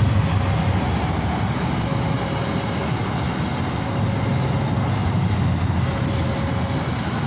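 A passenger train of coaches rolls past across a level crossing with a steady, heavy rumble. A faint thin tone comes and goes about every two seconds.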